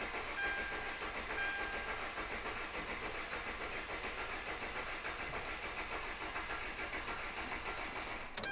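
Starter motor cranking the Hyundai D4CB four-cylinder diesel with the injectors unplugged, so it turns over steadily without firing, to build oil pressure before starting; the cranking cuts off abruptly near the end. A short beeping tone sounds twice in the first two seconds.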